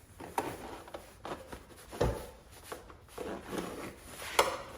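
Handling noises: a series of light knocks, clicks and rubbing, the sharpest knock about two seconds in and another near the end.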